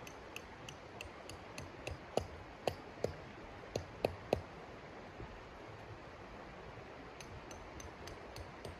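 A run of light, sharp clicks about three a second, with several louder knocks between about two and four and a half seconds in; after a pause the clicks start again near the end.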